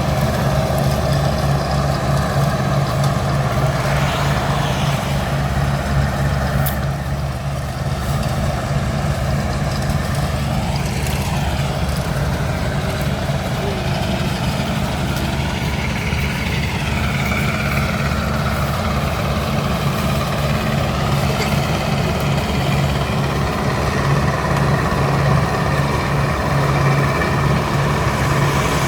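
1967 Massey Ferguson 410 combine harvester running steadily, its engine humming at a constant speed.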